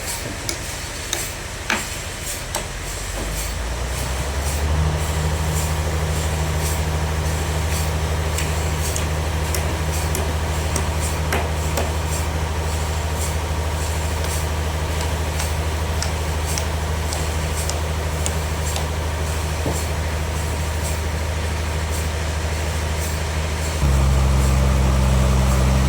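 Heavy engine or motor running steadily. It builds up a few seconds in, then steps up to a louder, deeper note about two seconds before the end. A few sharp knocks come in the first two seconds.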